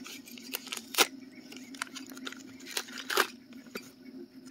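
Plastic packaging bag being torn and worked open by hand: irregular crinkling with sharp snaps, the loudest about a second in and again a little after three seconds.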